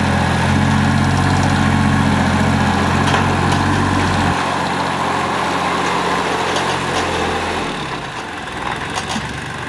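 Carraro 3800 HST compact tractor's engine running steadily as it drives, pulling a subsoiler. The low part of the engine sound falls away about four seconds in, and the engine grows quieter near the end as the tractor moves off.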